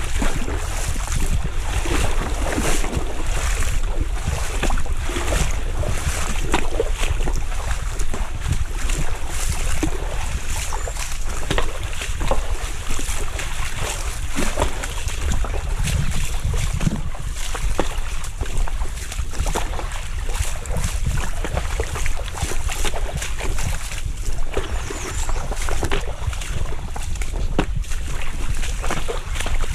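River water running, with wind rumbling on the microphone and many short knocks and ticks scattered through it.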